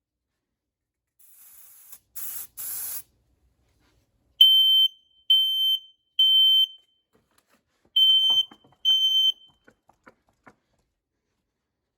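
A few short hisses of CRC Smoke Test aerosol sprayed at a home smoke alarm, then the alarm sounding, set off by the test smoke: three loud, high-pitched beeps, a pause, then two more beeps before it stops. A few light clicks follow.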